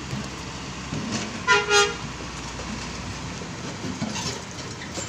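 Truck horn giving a short double toot about a second and a half in, over the steady low running of a Hino 500 dump truck's diesel engine as it passes.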